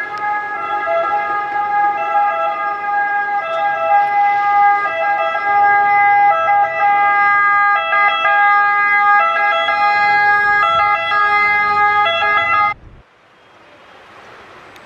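Ambulance siren sounding, its pitch switching back and forth and growing louder as the ambulance approaches. It cuts off abruptly about 13 seconds in as the ambulance pulls up, leaving quieter street noise.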